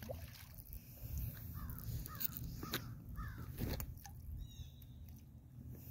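A crow cawing: three short, harsh falling calls in the middle of the stretch, over a low steady rumble.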